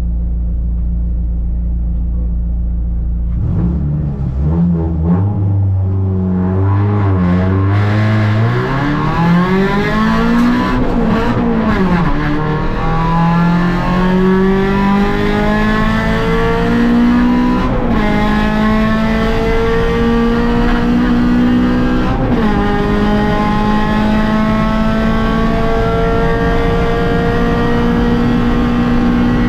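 Rally car engine idling at the stage start, then revved and launched hard, heard from inside the cabin. It accelerates through the gears, the engine note climbing and dropping back at each upshift, several times.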